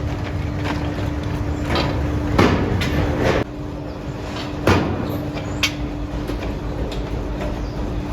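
Forging-shop machinery running with a steady hum, broken by several irregular sharp metal clanks and knocks, one of them ringing briefly.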